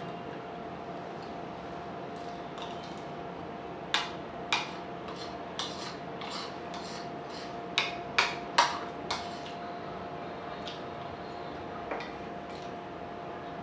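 Spoon clinking and scraping against a ceramic plate while eating curry and rice: a string of short sharp clinks bunched in the middle, with one more near the end, over a steady faint hum.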